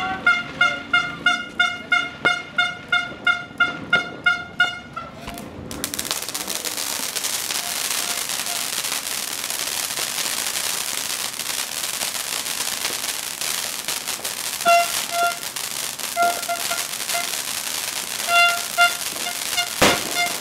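Ground firework fountain hissing and crackling steadily from about six seconds in, with one sharp bang near the end. Before it starts, and again through the crackle later on, a repeating pitched tune pulses about three times a second.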